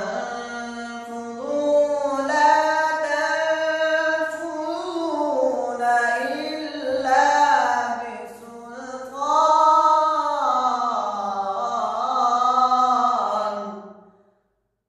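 A solo voice chanting in long, melodic held notes that glide up and down in pitch, fading out shortly before the end.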